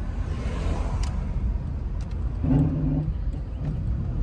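Car engine and road rumble heard from inside the cabin while driving, with a brief low humming tone about two and a half seconds in.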